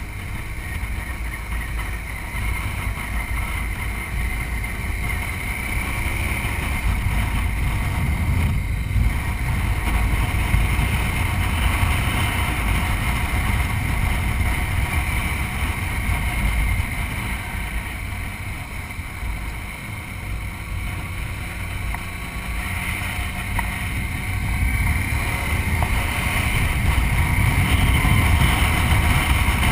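Wind rushing and buffeting over a bike-mounted camera on a moving BMW motorcycle. Beneath it the engine rises and falls in pitch through the curves.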